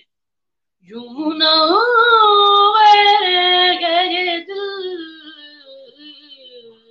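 A boy's solo voice singing a naat with no instruments. After a short silence, he sings one long ornamented phrase that rises in pitch, holds, and then trails off softly.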